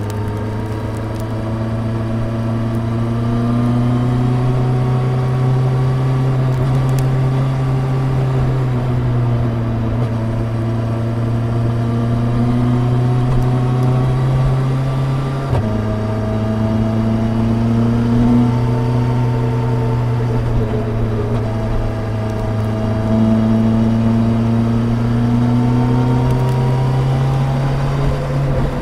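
2021 Suzuki Hayabusa's 1340 cc inline-four engine running steadily, its pitch drifting slowly up and down, with an abrupt change about halfway through.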